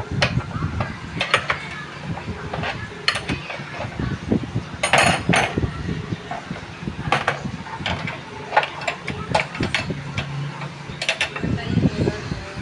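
Spanner clinking on steel nuts and the moped's metal headlight mounting as the nuts are undone, a run of sharp irregular metallic clinks and knocks.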